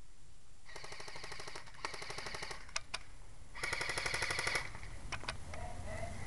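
Airsoft guns firing rapid full-auto bursts: three bursts of about a second each, with a few single shots between and after.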